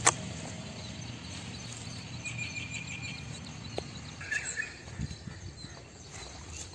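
Outdoor ambience with a steady low rumble. A sharp knock comes right at the start, an animal's rapid trill about two seconds in, and a few short chirping calls a little later.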